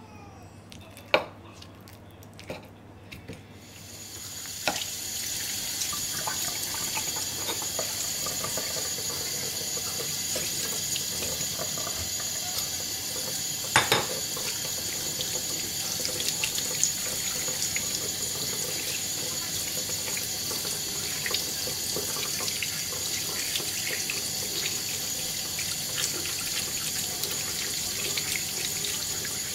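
Water running steadily, as from a tap, starting about four seconds in after a few sharp clicks, with scattered small knocks in it.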